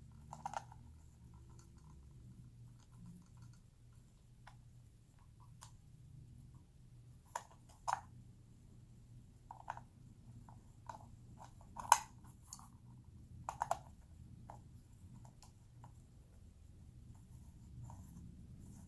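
Scattered light clicks and taps of a metal fishing-line spooler bracket and its plastic parts being handled and fitted together, the sharpest click about twelve seconds in, over a faint steady low hum.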